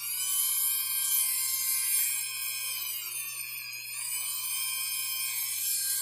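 Handheld rotary tool spinning a small polishing pad against the metal bolster of a slipjoint pocketknife, a high whine whose pitch wavers slightly as the pad is pressed on and eased off. The pad is working out dings in the bolster.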